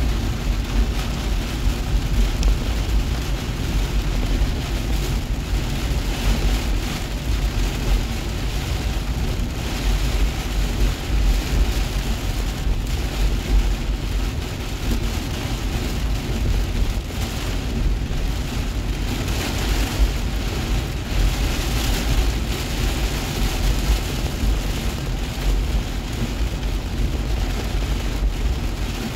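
Heavy rain drumming on a car's roof and windshield, heard from inside the cabin over the low rumble of the car and its tyres on the flooded road. The rain noise swells louder now and then.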